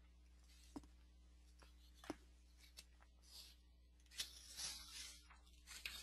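Near silence: room tone with a low steady hum and a few faint clicks and rustles.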